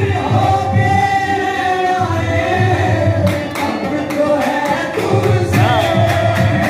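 Live qawwali: a lead singer and chorus singing with harmonium over a steady drum beat. About halfway through, rhythmic hand claps join in, a few a second.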